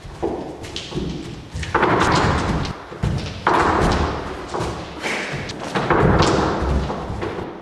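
A run of heavy thuds and knocks at an uneven pace, one every half second to a second, each ringing on briefly before fading.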